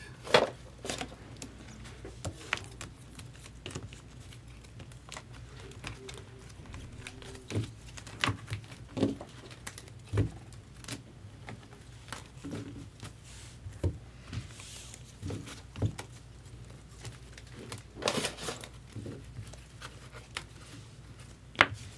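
Stack of sleeved trading cards being handled and flipped through: scattered light plastic clicks and taps with brief rustles.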